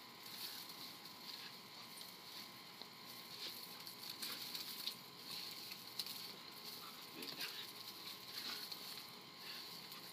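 A four-month-old Weimaraner puppy playing among a palm's low fronds and the grass beneath it: scattered crackles and rustles, with faint dog noises.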